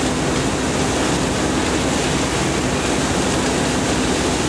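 Steady, loud roar of fire apparatus at work: fire engine pumps running under load with a steady low hum, mixed with the rush of water from several master streams.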